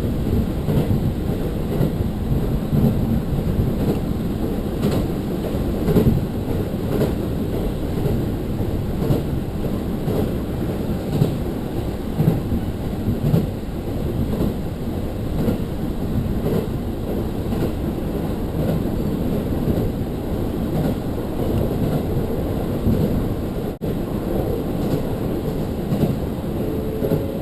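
Diesel railcar running at speed, heard from inside the carriage: a steady low rumble with irregular clacks of the wheels over the rails.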